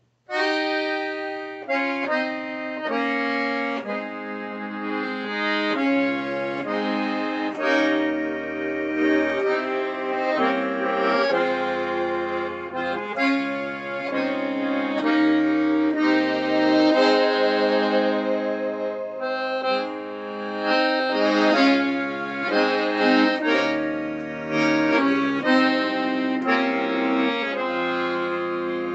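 Two piano accordions playing a duet together, starting suddenly on the first chord. Melody and chords are played over deep bass notes that come in about six seconds in.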